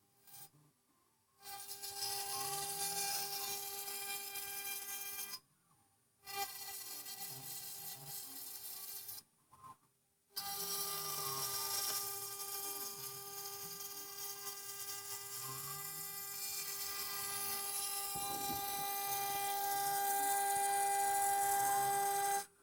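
CNC 6040 router's spindle whining steadily at high speed while milling aluminium, with a hiss of cutting noise and the stepper motors sweeping up and down in pitch as the axes move. The sound drops out abruptly twice for about a second, then runs on and grows a little louder near the end.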